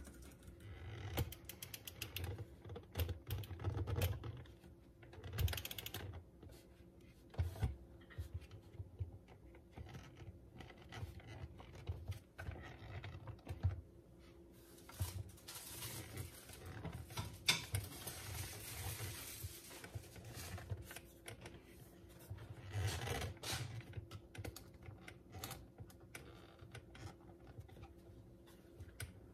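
Scattered plastic clicks, knocks and scrapes as the clear bean hopper of a Bodum Bistro electric burr grinder is seated, twisted to lock and lifted off its body, with a few seconds of rustling in the middle.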